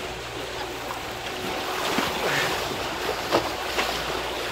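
Sea water rushing and slapping along the hull of a sailing boat under way, with wind on the microphone; two sharper splashes stand out, about two seconds and about three and a half seconds in.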